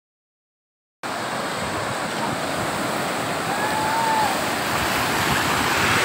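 Sea surf washing and foaming through the shallows in a steady rush, starting about a second in, with a brief faint high call near the middle.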